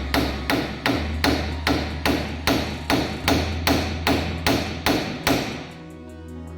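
Hammer striking metal in a steady rhythm: about fourteen even blows, two or three a second, that stop shortly before the end.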